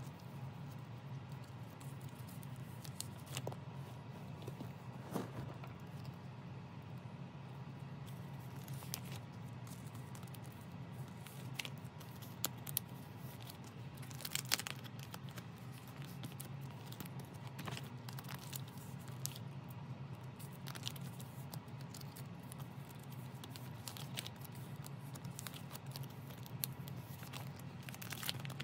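Clear plastic binder sleeves crinkling and rustling as photocards are slid into their pockets and the pages are turned, with scattered soft ticks and taps. A low steady hum runs underneath.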